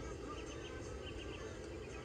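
Birds chirping in quick repeated groups of short high notes, over a steady low background rumble.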